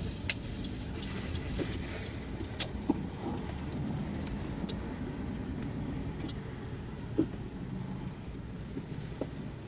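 Car driving slowly, heard from inside the cabin: a steady low engine and road rumble, with a few light clicks and knocks scattered through it.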